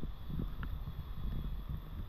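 Wind buffeting the microphone as an uneven low rumble, over the faint rush of a fast, shallow river.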